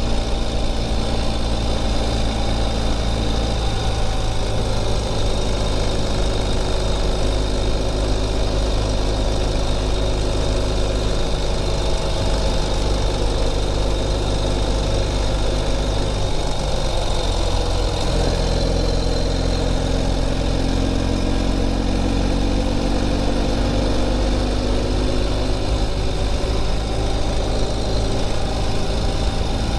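Ural Gear Up sidecar motorcycle's air-cooled boxer twin running steadily at road speed, with wind noise over it. The engine note shifts about halfway through and then climbs gradually as the bike speeds up.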